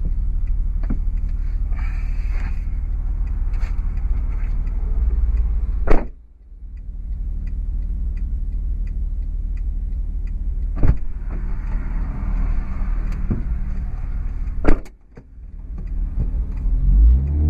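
Rear BC Racing BR-series coilovers on a 2008 Honda Accord coupe knocking over the steady low rumble of the moving car. Three hard knocks stand out, about five seconds apart, with lighter clicks between them. The owner has ruled out the end links, sway bar, bushings, top nuts and mounting bolts, and blames the coilovers themselves.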